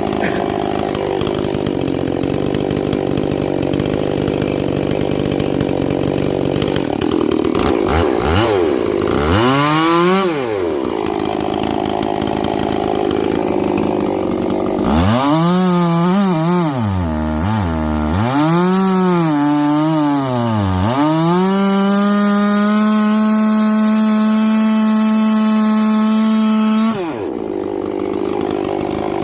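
70cc-class two-stroke chainsaw cutting through wood, then revved up and down several times. It is held steady at full throttle without load for about six seconds and then let off near the end.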